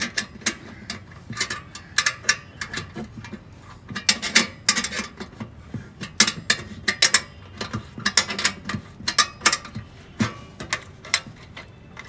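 Ratchet wrench clicking in short, irregular runs while tightening the clamp bolt of a bolt-on exhaust tip.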